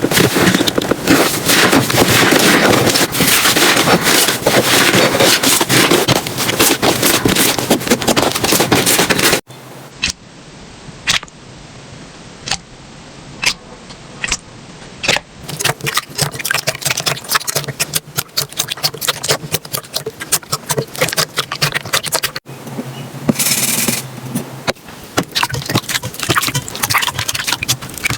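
Slime being squeezed, stretched and pressed by hand, with dense crackling and popping. About nine seconds in it changes abruptly to a quieter stretch with sparse sharp pops, and about twenty-two seconds in the dense crackling returns.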